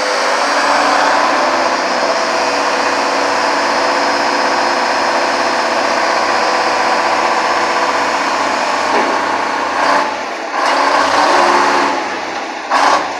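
1954 LeTourneau-Westinghouse Tournarocker's GM Detroit six-cylinder inline two-stroke diesel with blower, running steadily, with a few short louder bursts in the last few seconds.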